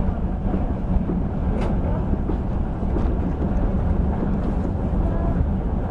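Passenger train running at speed, heard on board: a steady low rumble of the coach's wheels on the rails, with a couple of faint clicks.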